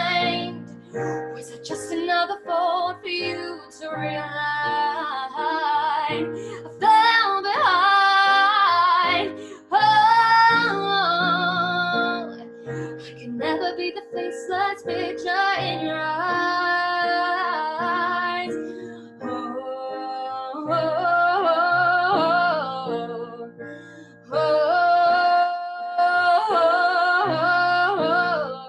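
Acoustic song: a solo voice sings long, held melodic lines over acoustic guitar chords.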